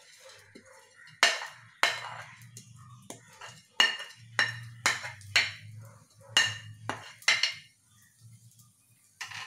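Sharp clinks of a glass plate and spatula knocking against an earthenware cooking pot as fried bitter gourd and green chillies are scraped off the plate into it. There are about ten clinks, each with a short ring.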